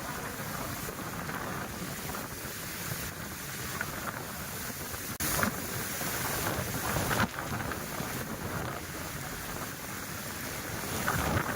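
Steady rush of rain and wind, with wind buffeting the microphone. The sound shifts abruptly about five seconds in and again about seven seconds in.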